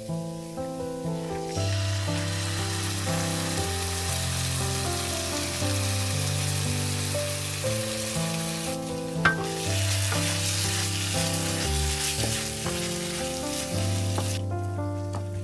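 Food sizzling as it fries in a pan and is stirred. The sizzle starts about a second and a half in, dips briefly around the middle with one sharp click, and stops near the end. Gentle background music plays throughout.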